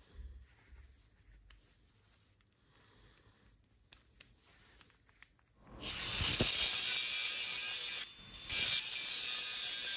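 Faint clicks of an angle grinder's gear head being handled, then, about six seconds in, the angle grinder cutting into painted steel with a loud, steady, shrill hiss that breaks off briefly once.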